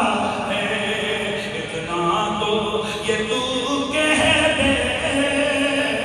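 Melodic devotional chanting by voice: long held notes that slide up and down, in a sung recitation style.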